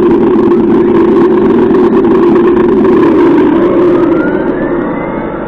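Electronic engine-sound module (ESS T.T) on a 1/8-scale RC car playing a loud, steady simulated engine note through its speaker. About four seconds in, rising whines join and the sound fades as the car pulls away.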